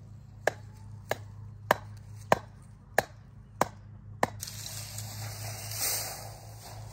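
Seven sharp knocks, evenly spaced a little over half a second apart, from work on a garden fence post. After them comes a rustling, scraping noise as a roll of welded wire fencing is handled.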